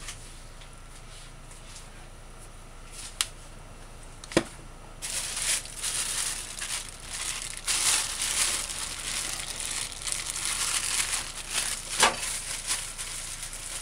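Irregular crinkling and rustling noise, starting about five seconds in after two sharp clicks, over a steady low hum.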